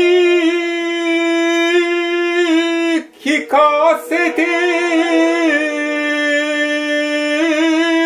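Shigin-style kayō-ginei chanting: a single voice holds long drawn-out notes with wavering ornaments. It breaks off about three seconds in, climbs into the next phrase and settles on another long note that trembles near the end.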